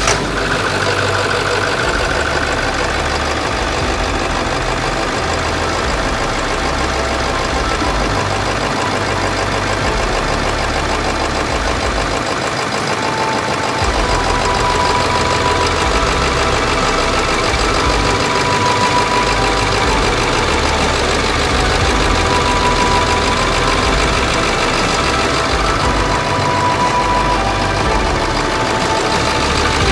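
Ford 7.3 Powerstroke turbo-diesel V8 idling steadily, just started after being cranked. It is running on a new engine wiring harness.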